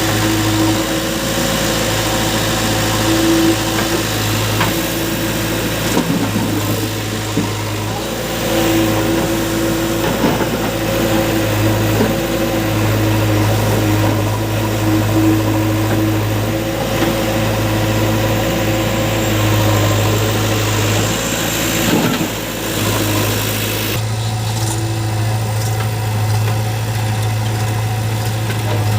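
Heavy diesel engines of earthmoving machinery running steadily, their low drone swelling and easing every few seconds.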